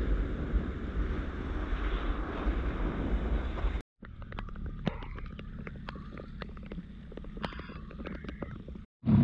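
Small boat running on open water behind a 25 HP Yamaha two-stroke outboard, with wind buffeting the microphone over the steady engine and hull noise; it cuts off abruptly about four seconds in. A quieter stretch follows with scattered sharp clicks and a couple of brief high calls.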